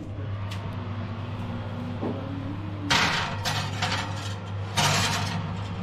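Glass baking dish slid onto a metal oven rack: two short scraping slides, about three seconds in and near the end, over a steady low hum.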